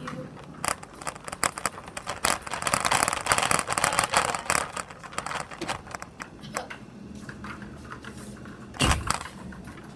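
Laundromat cart rolling over the floor, rattling and scraping. A single heavy bang about nine seconds in, as the cart hits a washing machine.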